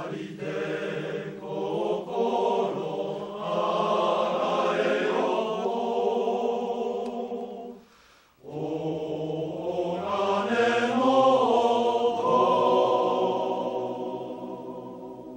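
Men's choir singing held chords in two phrases, with a short break for breath about eight seconds in; the second phrase dies away near the end.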